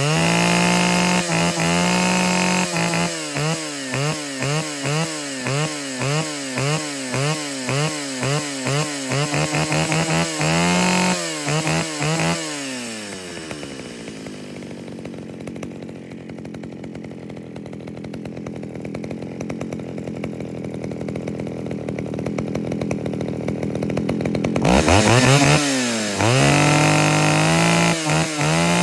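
Old two-stroke chainsaw running and being revved: the throttle is blipped up and down about twice a second for the first dozen seconds. It then drops back to a low idle, and about four seconds before the end it is revved hard again.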